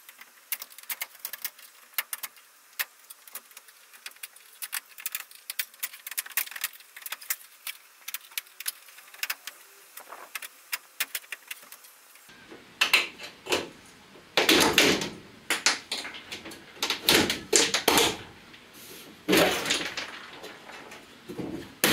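A van's interior side lining panel being stripped off the metal wall. First comes a run of small clicks and ticks as its fixings are worked out by hand. From about twelve seconds in there are louder bouts of scraping and rattling as the panel is pulled free.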